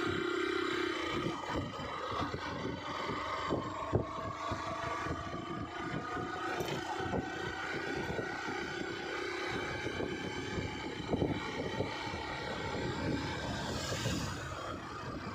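The engine of the vehicle carrying the camera runs steadily, its pitch slowly rising, with frequent low buffeting thumps from wind and road on the microphone.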